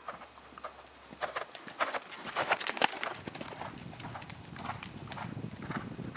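Hoofbeats of a horse cantering on sand arena footing as it passes close by and moves away, a run of irregular dull knocks that are loudest about two to three seconds in.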